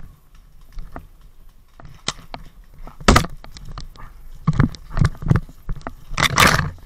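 A paintball player's footsteps with scraping rustles of gear or brush, picked up by a body-worn camera. The steps are loose and irregular at first and settle to about two a second from a few seconds in, with one longer rustle near the end.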